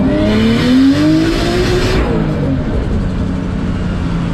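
Turbocharged RB25DET straight-six in a Nissan S14 accelerating, its pitch rising under a loud hiss. About two seconds in the hiss cuts off suddenly as the throttle lifts, and the engine settles to a steadier drone that slowly falls in pitch.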